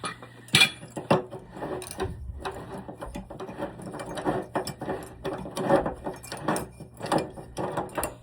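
A run of irregular mechanical clicks and short rattles as a tool works an electric water heater's heating element out of the tank's threads after it has broken loose.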